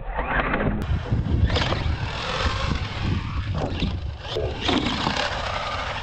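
Radio-controlled monster truck running and jumping on a dirt track, with several sharp thumps as it lands and bounces.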